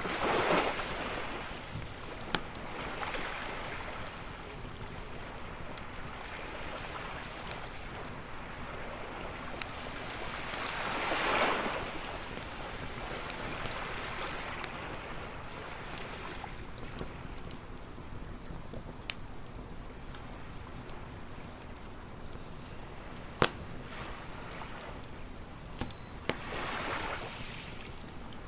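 Campfire crackling with sharp scattered pops over the steady hiss of the sea, as waves wash in three times: at the start, near the middle and near the end.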